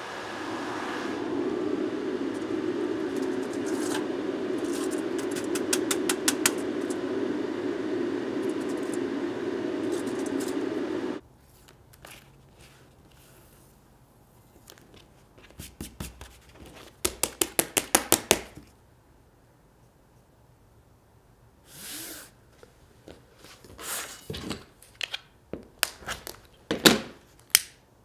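A Trotec laser cutter running as it cuts leather strap pieces: a steady mechanical noise with scattered ticks, which stops abruptly about eleven seconds in. After that, quiet handling of the cut leather pieces and their paper masking, with scattered taps, a quick run of clicks and a few sharper knocks near the end.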